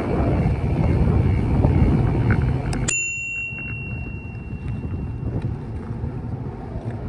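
Wind rushing on the microphone, then a bicycle bell rung once about three seconds in, its single tone ringing on for about a second and a half.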